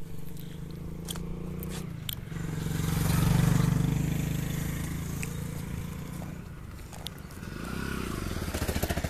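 A small engine running, getting louder to a peak about three seconds in, fading, then swelling again with a pulsing beat near the end. A few light clicks sound over it.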